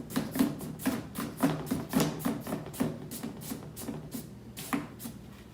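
A 2-inch bristle brush scrubbing paint onto paper laid over cardboard in quick criss-cross strokes, about four to five scratchy taps a second, slowing and fading near the end.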